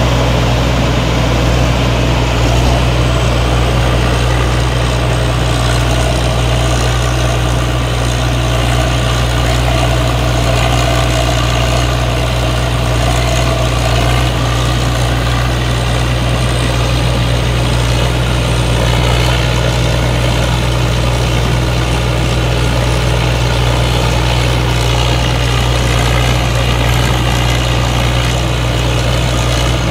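Tracked rice combine harvester running steadily while harvesting: a constant low engine hum under the dense, even noise of its threshing works as straw is thrown out the back.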